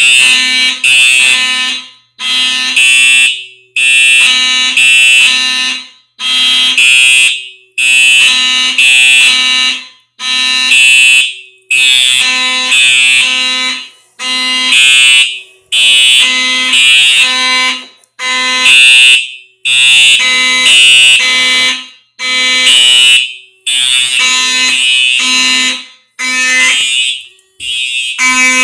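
Fire alarm system sounding in alarm during a system test, its notification appliances going on and off in a repeating pattern that cycles about every four seconds.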